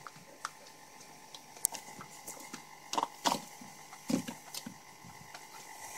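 Hens pecking at dry pellets in a small plastic bowl: irregular sharp taps and clicks, a few louder ones around the middle.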